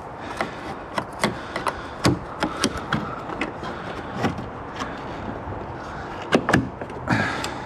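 Irregular sharp clicks and knocks of a 2016 Nissan Quest's plastic taillight housing being tugged and pried by hand against its retaining clips.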